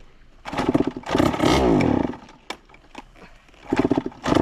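Waterlogged 85cc two-stroke dirt bike engine being kick-started: it sputters and revs unevenly for about a second and a half, dies back, then fires again near the end and catches.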